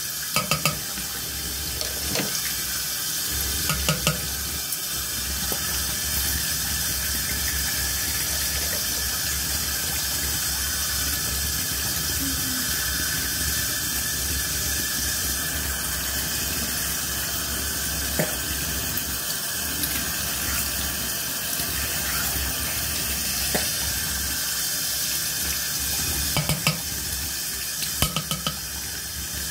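Bathroom sink tap running steadily into the basin, with a few short knocks and clicks near the start and again near the end.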